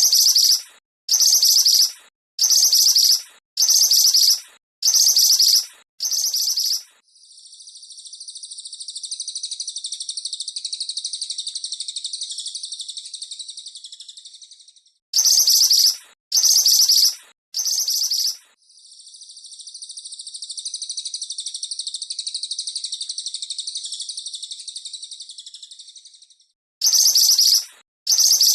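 Recorded songs of cililin and mantenan birds played as a birdsong training track: runs of short, loud, high chirps about a second apart, alternating with long, high, rattling trills that swell and fade over about seven seconds each.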